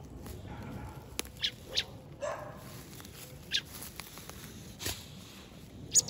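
Boxer dog close up, sniffing and whining at a fledgling bird: three short, high, falling squeaks and a lower one about two seconds in.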